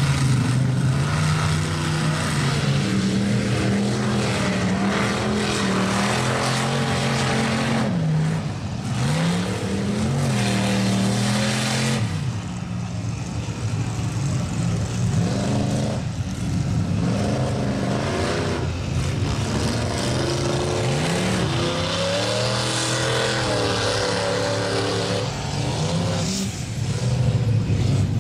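Lifted Chevy mud trucks on oversized tractor tires driving through a mud bog, their engines running loud and revving, the pitch dipping and climbing again several times as the throttle changes.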